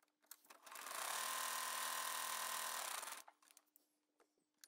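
Electric sewing machine stitching fabric through foundation paper along a dotted seam line. It runs at a steady speed for about two seconds, starting about a second in, then stops, followed by a few faint ticks.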